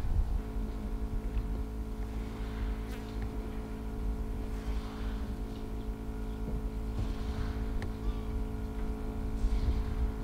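A vehicle engine idling steadily, an even, unchanging hum.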